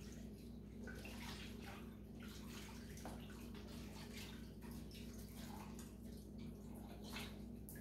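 Milk pouring from a bowl into a skillet and splashing as it is whisked into a flour-and-butter roux, over a steady low hum.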